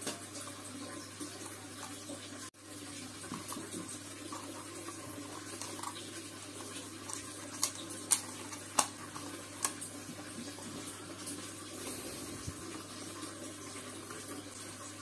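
Hands handling a cut plastic bottle and a wire, with a few sharp clicks and rustles about halfway through, over a steady background hiss.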